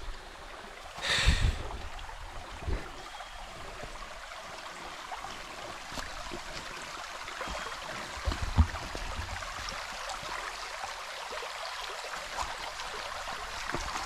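Shallow jungle stream running over rocks and stepping stones: a steady babbling rush of water. A few dull thumps come through as well, the loudest about a second in.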